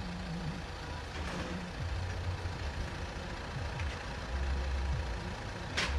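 Car engines idling in stopped traffic: a steady low hum that gets louder about four seconds in, with one sharp click or knock near the end.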